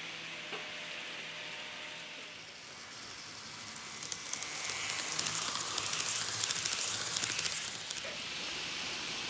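Kato N scale Amtrak ACS-64 model locomotive and coaches running on the track. A hissing rush of the small motor and wheels swells about four seconds in as the train passes close, with fine clicks from the wheels, then eases off near the end.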